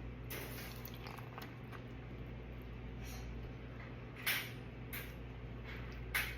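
Close-miked mukbang eating sounds: wet chewing and mouth smacks while eating BBQ short ribs, with two louder smacks about four and six seconds in, over a steady low hum.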